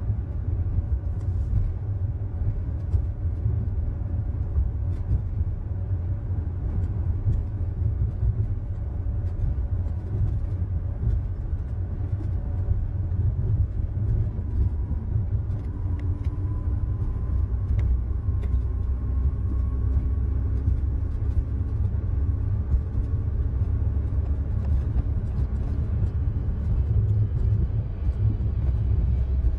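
Steady low rumble heard inside a moving ULTra personal rapid transit pod, its rubber tyres running on the concrete guideway, with a faint rising tone about halfway through.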